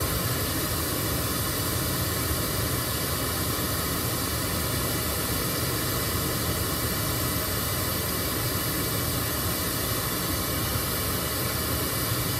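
Pink noise test signal played through the Honda HR-V's front speaker set, heard inside the car's cabin: a steady, even hiss across the whole range that starts abruptly and holds. It is the reference signal for a real-time-analyzer (RTA) measurement of the front speakers' frequency response while the DSP is being tuned.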